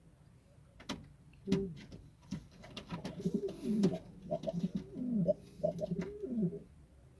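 Domestic pigeon cooing, a run of low coos that bend downward in pitch from about a second and a half in until near the end, with a few sharp clicks in between.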